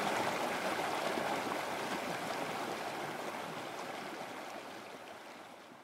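Mountain stream cascading over rocks: a steady rush of white water that fades out gradually over the last few seconds.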